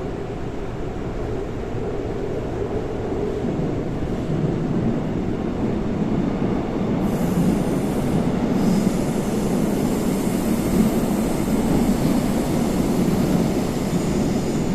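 Running noise of a Seoul Line 4 VVVF 4000-series GTO electric multiple unit, heard from inside the car: a steady rumble of wheels and motors. The noise grows somewhat louder, and about halfway through a high hissing, squealing wheel noise joins it.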